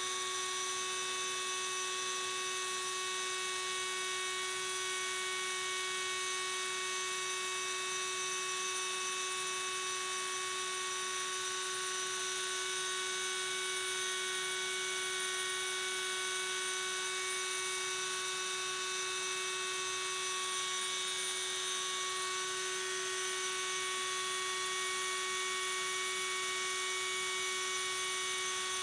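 Small high-speed electric rotary tool, mounted as a milling spindle on an ABB IRB 120 industrial robot, running steadily while it mills a workpiece: a constant whine that holds the same pitch throughout.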